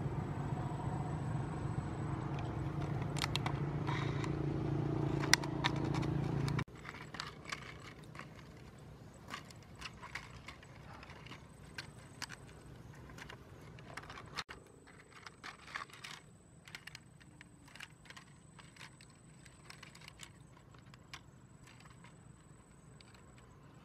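Steel scissors snipping through a thin plastic drink bottle, a run of short irregular clicks and crinkles of the plastic. For the first six or so seconds a louder steady low hum runs underneath, cutting off abruptly.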